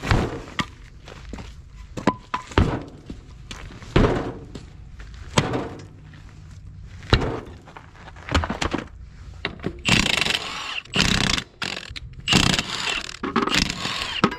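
Heavy knocks and thuds of wooden blocks and a steel tractor wheel being handled on gravel, then a cordless impact wrench running in several short bursts on the wheel's lug nuts near the end.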